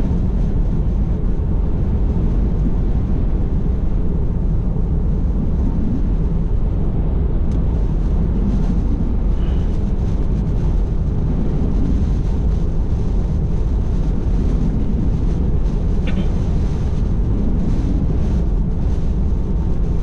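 Steady low road and wind noise heard inside a Tesla Model 3's cabin at highway speed on wet pavement, with no engine sound since the car is electric; gusting crosswind and rain on the body add to it, with a few faint ticks from rain.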